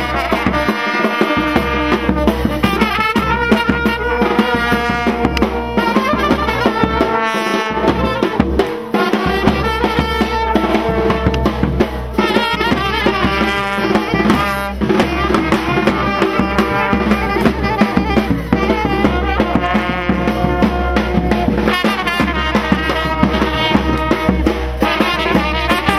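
Brass band music, trumpets playing the melody over steady drumming, accompanying street dancing.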